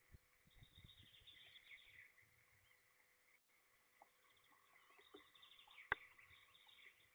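Faint calls and chirps of small songbirds, with a few light taps early on and one sharp click about six seconds in.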